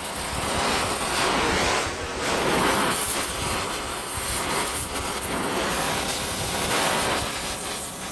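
Heating torch flame burning with a steady rushing noise that swells and eases every second or two, as bent mini bike fork tubes are heated for straightening.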